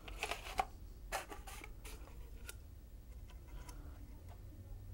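Faint clicks and light scraping of a thin stainless steel sheet being slid into a glass tube, mostly in the first two seconds, then only a few small ticks over a low steady hum.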